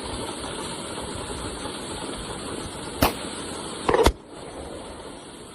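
Pistol gunfire: a sharp shot about three seconds in, then a second, louder sharp report just under a second later, over a steady background noise.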